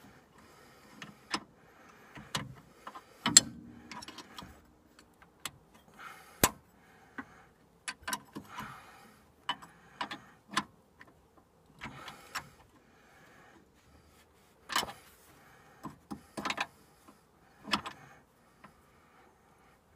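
Ratchet wrench clicking in short bursts as a sway bar link nut is run down on its threads, with scattered sharp metallic clinks and knocks of the tool against the link, the loudest about three seconds in.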